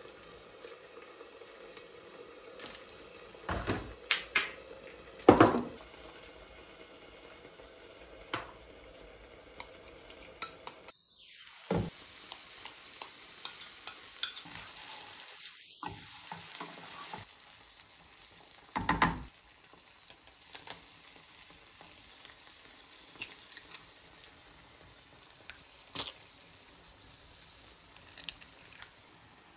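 Peppers and onions frying in a pan with a light sizzle, stirred with a spoon. Several sharp knocks of utensil on pan are the loudest sounds, the biggest cluster about four to five seconds in. Midway a louder hissing sizzle lasts a few seconds.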